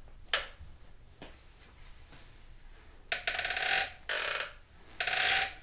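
Rear shock linkage of a 2004 Yamaha R1 creaking in three strokes about a second apart as the suspension is worked, with a couple of sharp clicks first; the creak is still there after a joint has been sprayed with WD-40.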